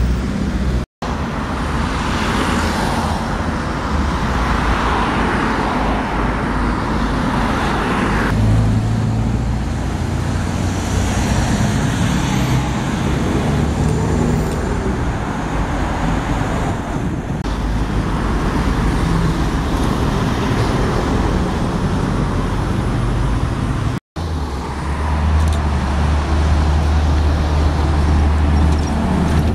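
Road traffic with diesel buses and cars passing along a main road. After a cut near the end, a Scania single-decker bus idles close by with a steady low engine hum.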